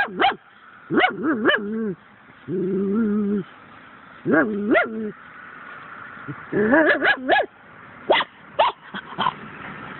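A dog whining and yipping in a string of short calls that slide up and down in pitch, with one longer, lower whine near the middle and a few sharp yips near the end: excited whining at a small frog it is sniffing at.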